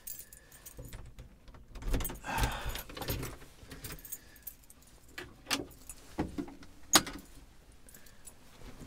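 A bunch of keys jangling and rattling in the boat's lock, followed by several sharp clicks and knocks as the boat's wooden doors are unlocked and opened, the loudest about seven seconds in.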